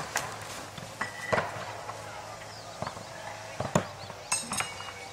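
Throwing knives striking wooden targets, sharp knocks about once a second. Two hits near the end ring brighter and more metallic. Voices murmur faintly in the background.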